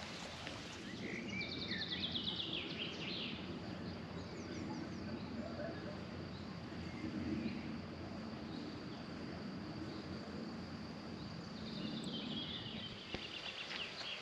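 A small bird sings rapid trilling phrases twice, about a second in and again near the end, over a steady outdoor background hiss.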